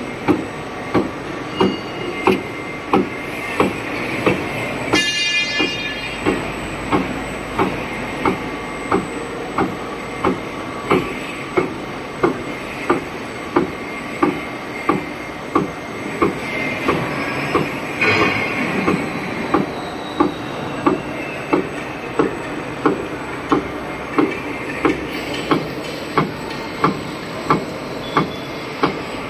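Flat bed die cutting and hole punching machine running, its die press striking in a steady rhythm of about 100 strokes a minute, one knock every 0.6 seconds or so, over continuous running noise. A brief high squeal sounds about five seconds in.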